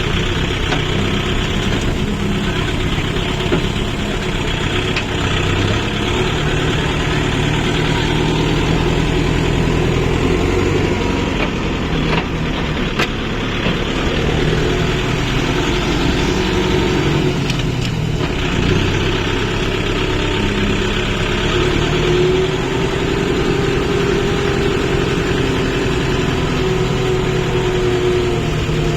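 Diesel engine of a farm machine, a tractor or rice harvester, running steadily, its pitch shifting a little now and then.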